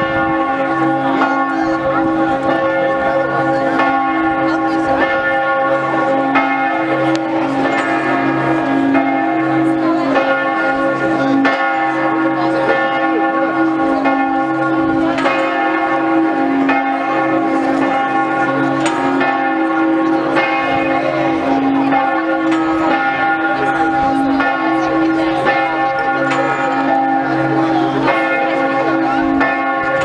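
The church bells of St Mark's Campanile ringing a full peal, several bells struck over and over so that their tones overlap into one continuous, loud ringing.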